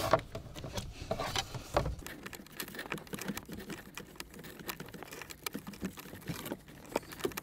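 Braided-sleeved wiring harnesses being gathered and bunched by hand under a truck dash: irregular rustling and small clicks, the sharpest one right at the start.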